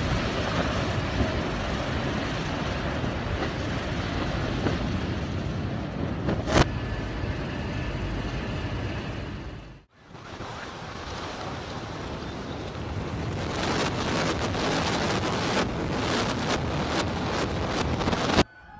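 Steady rumbling noise of a demolished structure coming down amid dust, with wind buffeting the microphone and one sharp crack about six and a half seconds in. The sound cuts out for a moment near the middle, then the rumble returns with a run of sharp crackles near the end.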